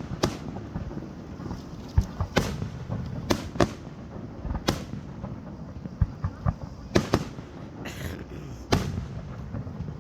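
Aerial fireworks shells bursting overhead: about ten sharp booms at irregular intervals, some in quick pairs, over a low background rumble.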